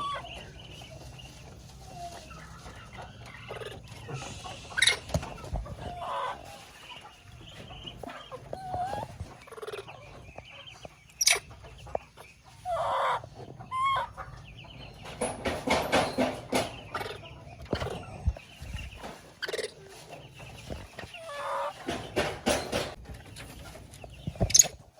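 Baby monkey calling for its mother: a string of short squeaky calls and chirps that slide up and down in pitch, thickening into denser outbursts about two-thirds of the way through and again near the end, with a few sharp clicks or knocks in between.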